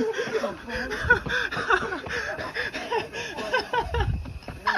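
Young men laughing hard, quick repeated laughs overlapping, with a low rumble from the phone being jostled about four seconds in.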